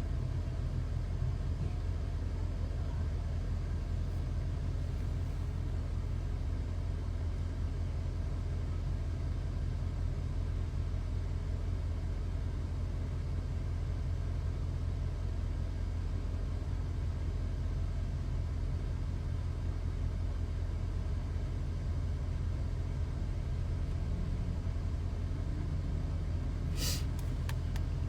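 Steady low rumble of a car on the move, heard from inside the cabin, with a brief sharp high sound near the end.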